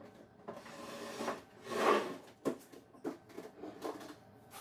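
A large wooden dining tabletop being lowered and slid onto a hardwood floor: a scraping rub that is loudest about two seconds in, followed by several light knocks as it settles.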